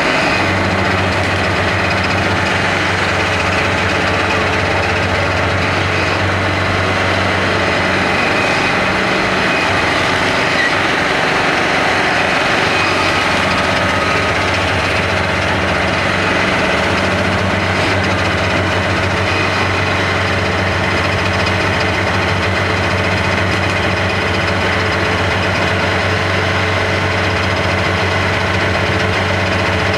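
Type 87 self-propelled anti-aircraft gun's engine running steadily at idle with a low hum. The lowest part of the hum eases for several seconds midway, then returns.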